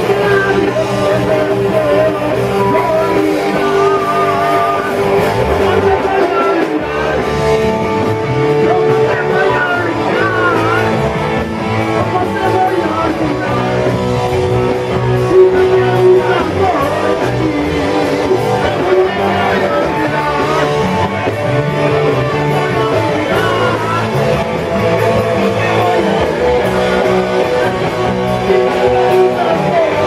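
Rock music with electric guitars and singing.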